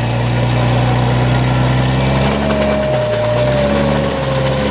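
Off-road 4x4's engine revving under load as its wheels spin in deep snow; the revs dip and climb again about three seconds in. A thin whine falls slightly in pitch through the second half.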